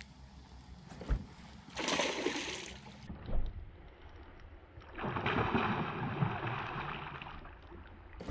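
Water splashing and sloshing around a small fishing boat, in two noisy stretches, with two dull thumps against the hull, about a second in and again a little after three seconds.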